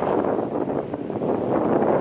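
Strong wind buffeting the microphone: a steady, gusting rush that rises and falls in strength.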